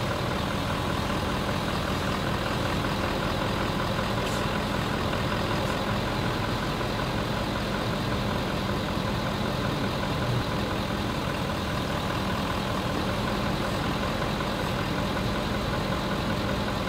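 2017 Ford F-250 Super Duty engine idling steadily, heard from under the front of the truck while the front wheels are steered from side to side to check the new steering stabilizers for binding.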